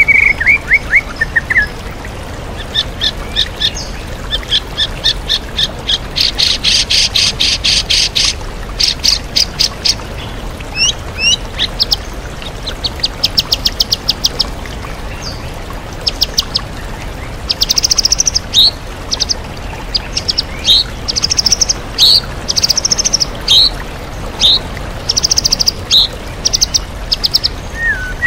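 White-rumped shama singing a varied song of quick repeated notes, short rattling trills and slurred whistles, in phrases with brief gaps, over the steady rush of a waterfall.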